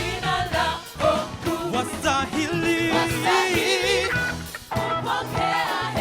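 Worship band playing gospel music, with a voice singing over it.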